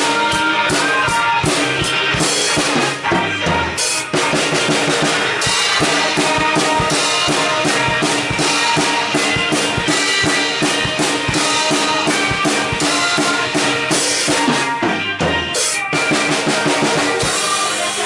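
Music with a drum-kit beat: bass drum and snare hits under a full instrumental backing.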